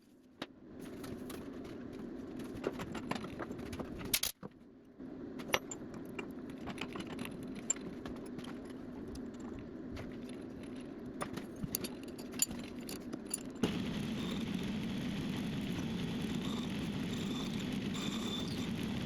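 A metalworking machine running steadily, with scattered light metallic clicks and rattles. About 14 s in it gets louder and a thin, steady high whine joins it.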